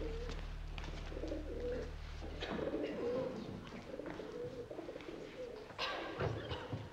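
Pigeons cooing in short, repeated warbling phrases. A low held harmonium chord cuts off about two and a half seconds in, and a few knocks come near the end.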